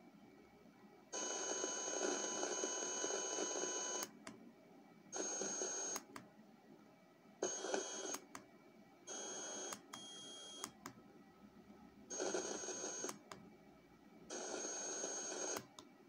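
A TEF6686 FM radio receiver's audio output while it is tuned across the band off-station. It gives six bursts of static hiss carrying steady high tones, each lasting from under a second to about three seconds. Between bursts the sound drops back to quiet, with sharp clicks as the tuning changes.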